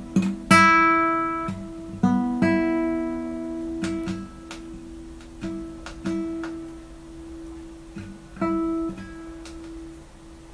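Acoustic guitar music: slow plucked notes and chords, each struck a few seconds apart and left to ring out.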